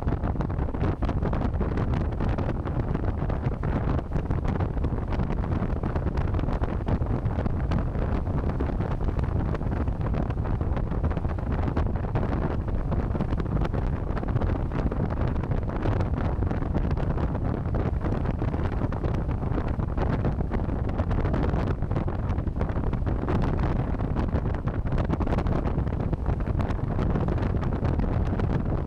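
Heavy wind noise buffeting the microphone on a moving motorcycle: a steady low rumble with frequent crackles.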